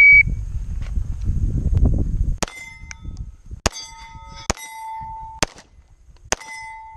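A shot timer beeps once at the start. About two and a half seconds later comes a string of five pistol shots at irregular spacing over about four seconds, each followed by the ring of a struck steel plate.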